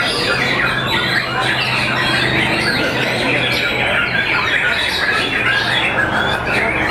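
White-rumped shamas (murai batu) singing in competition: a dense, continuous mass of overlapping whistles and chattering phrases from several birds at once. A low steady hum runs underneath and fades out near the end.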